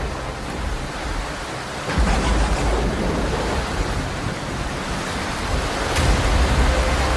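Hurricane storm noise: heavy rain and strong wind in a steady hiss, with deep rumbling gusts that swell about two seconds in and again near the end.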